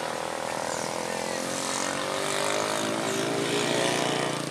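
A motor vehicle's engine running as it passes on the road, a steady drone with slowly shifting pitch that grows a little louder toward the end.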